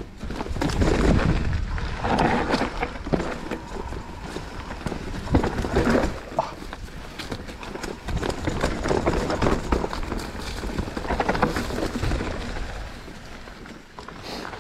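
Mountain bike riding fast down a rooty forest singletrack: tyres on dirt, with the bike rattling and knocking over bumps and a low wind rumble on the microphone. It gets quieter near the end as the trail becomes smoother.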